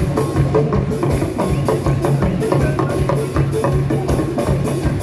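Live band playing upbeat Frafra gospel highlife: a steady, driving drum and percussion beat with a bass line underneath.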